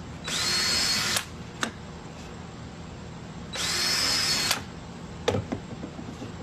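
Power drill boring holes through a thin 4 mm wooden hull panel for stitch-and-glue zip ties: two short runs of about a second each, the motor whine rising then holding steady. A sharp click follows each run.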